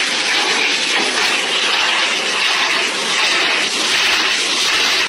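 Pet grooming blow dryer blasting air from its nozzle: a loud, steady, even rush with no change in pitch.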